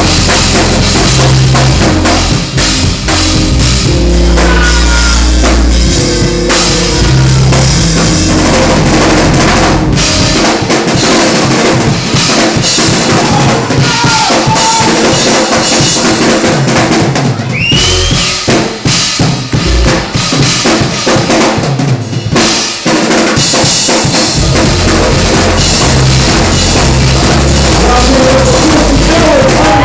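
Loud music driven by a drum kit and bass, with kick, snare and rimshot hits. About ten seconds in, the bass drops back to mostly drums for a stretch, then returns.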